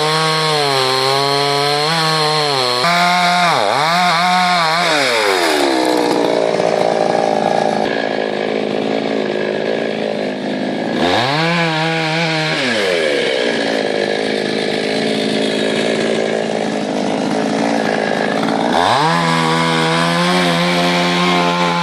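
Two-stroke chainsaw cutting through firewood: the engine runs at a steady high pitch, then drops and turns rough as the chain bites into the wood, twice, rising back to a clean steady run as it clears the cut near the end.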